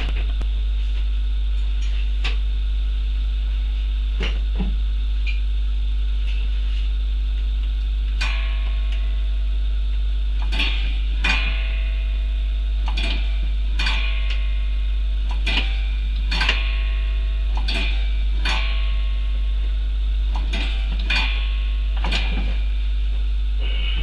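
Sharp clicks and knocks, about a dozen, mostly in the second half, as the accelerator pedal and the new throttle cable work the four-barrel carburettor's linkage with the engine off. A steady low hum runs underneath.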